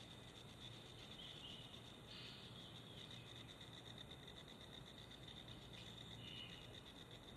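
Near silence outdoors: a faint, steady high-pitched trill of insects, crickets by its character, with a few brief faint chirps over it about a second, two seconds and six seconds in.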